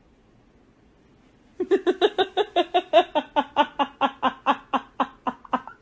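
A person laughing in a rapid, even run of short 'ha' sounds, about five a second, starting about a second and a half in.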